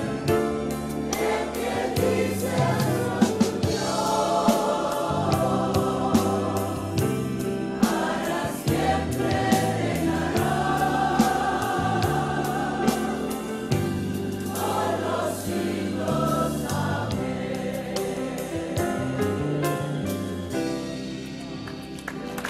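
A choir or congregation singing a Spanish-language hymn over instrumental accompaniment with a steady beat.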